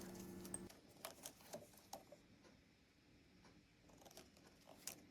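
Faint light clicks and taps of a wire connector being handled and unplugged from an amplifier's circuit board, a few in quick succession and one more near the end. A faint low hum cuts off just under a second in.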